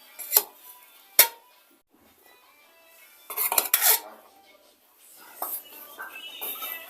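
Cutlery and plates clinking during a meal: a few sharp separate clinks in the first second or so, then a brief clatter a little past the middle.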